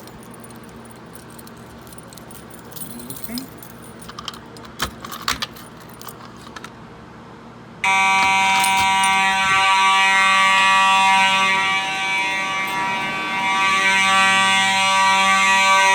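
A few faint clicks, then about halfway through Simplex fire alarm horns on horn/strobe plates suddenly start sounding a loud, steady, buzzy horn tone that continues without a break.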